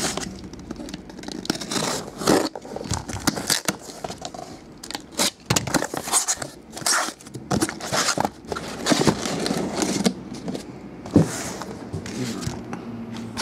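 A cardboard shipping case being cut open and unpacked: tape sliced and torn, flaps pulled back, and hobby boxes scraped against the cardboard as they are handled, in irregular rustling and scraping strokes.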